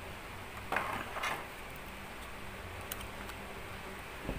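Handling noise from a plastic phone clamp and tripod rig as a phone is fitted into it: two short scraping clicks about a second in and a sharp click near three seconds, over a steady low hum.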